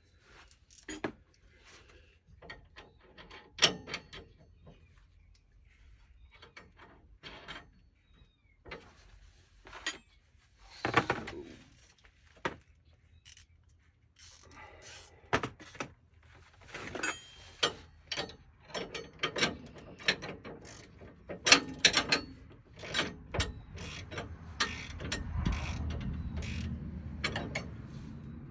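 Hand tools working on bolts: scattered metal clicks and knocks, then quicker runs of clicking typical of a ratchet wrench from about halfway on, with a low rumble near the end.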